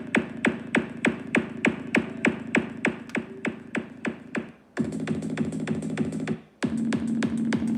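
Electronic dance music with a steady beat played through a portable Bluetooth speaker. The beat fades out about halfway through and a held synth chord takes over. After a short break the beat comes back near the end over a strong low note.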